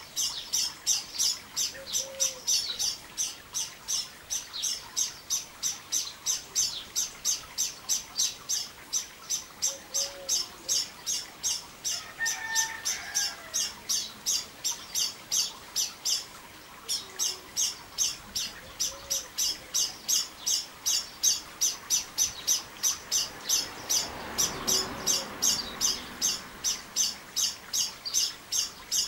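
A high chirp repeated steadily about three times a second, with a short pause about halfway through. A few lower calls come in briefly, and a soft rushing sound swells near the end.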